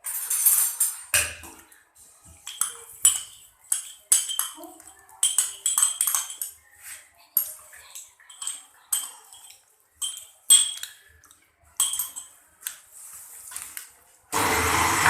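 A metal spoon clinking against steel utensils, many sharp ringing strikes. Near the end a kitchen mixer-grinder is switched on and runs loudly and steadily.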